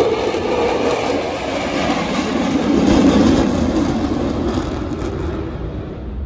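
Blue Angels F/A-18 jets in diamond formation passing overhead: a loud, continuous jet roar whose pitch slides lower as it swells about three seconds in, then fades away near the end.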